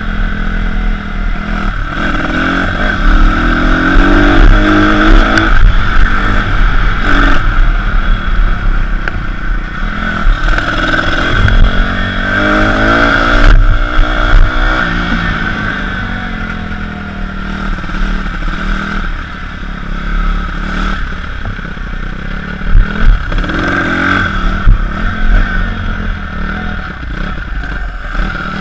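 Pit bike engine revving up and easing off again and again as it is ridden, heard close from the rider's helmet camera. Sharp clatters from the bike bumping over the track come a little before the middle and again near the end.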